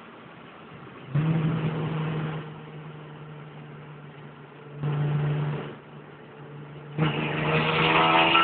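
Hyundai Tiburon's engine and exhaust running, louder in three throttle stretches: about a second in, around five seconds, and a longer one near the end, where the pitch climbs slightly. The exhaust has new headers and no cat-back fitted, and leaks at the catalytic-converter section.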